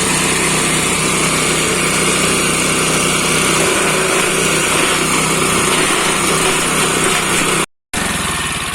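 Small engine of a chopping machine running steadily at speed. Near the end it cuts out briefly, then a lower, pulsing engine sound comes in and begins to fade.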